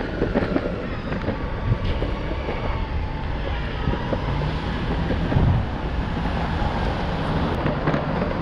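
Wind buffeting the microphone over a steady low street rumble, starting abruptly, with a faint steady whine above it.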